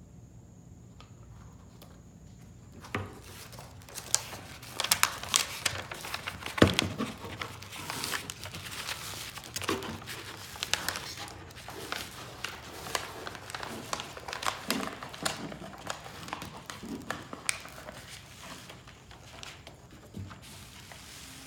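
Vinyl wall-art sheet crinkling and rustling as it is handled, a dense run of crackles and sharp rustles starting about three seconds in.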